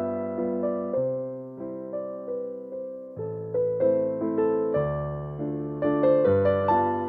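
Slow solo piano music: single notes and chords struck and left to fade over a low bass line.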